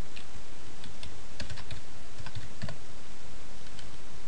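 Computer keyboard typing: irregular keystrokes in quick little groups as a short command is typed and entered, over a steady background hiss.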